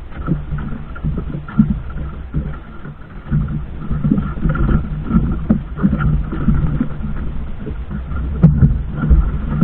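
Small outrigger fishing boat's engine running steadily, with irregular louder surges of water and wind noise over it.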